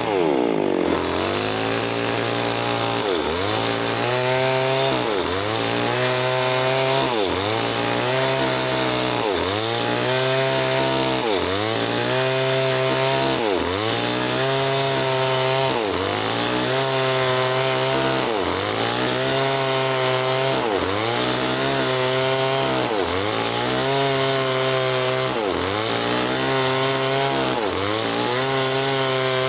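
Stihl MS 381 two-stroke chainsaw ripping lengthwise through a meranti log at full throttle under load. Its pitch falls sharply at the start as the chain takes the cut, then sags and recovers about once a second as the bar bites into the wood.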